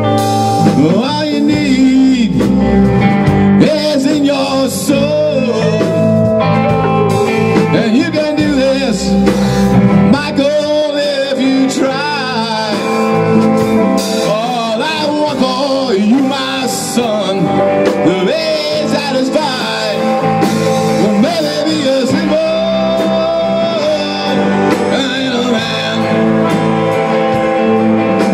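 Live rock band playing: two electric guitars, electric bass and a Tama drum kit, with a lead line bending and wavering above the band.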